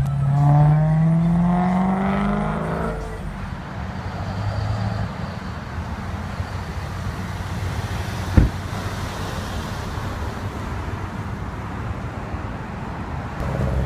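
A car engine accelerating, its note rising over the first three seconds, then settling into a quieter, steady traffic hum. A single sharp knock sounds about eight seconds in.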